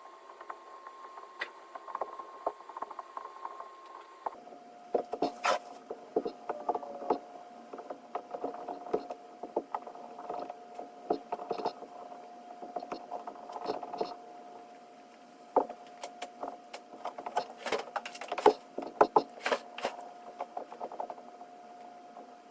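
Irregular taps, clicks and scrapes of hand tools working leather-hard clay slabs on a work surface, over a steady faint hum.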